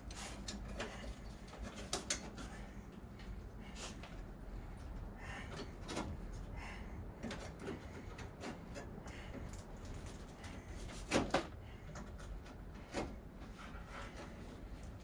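Scattered clicks and knocks of metal parts being handled and fitted by hand, with a louder double knock about eleven seconds in.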